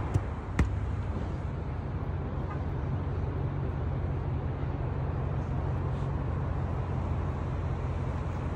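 Steady low rumbling background noise with a hiss above it, broken by two short sharp clicks in the first second.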